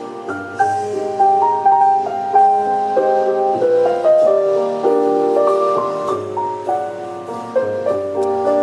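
Piano music: a quick, busy run of overlapping notes with no singing.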